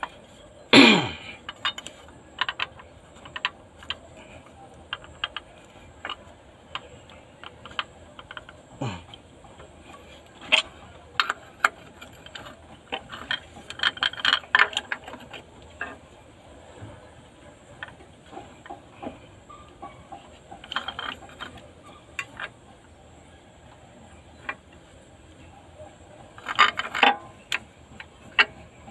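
Sharp metallic clicks and clanks from an improvised puller, a T-handled threaded rod inside a steel tube, being turned and levered with a wrench on a Caterpillar 3116 diesel cylinder head to draw out a broken injector sleeve. The clicks come in scattered runs, loudest just after the start, in the middle and near the end.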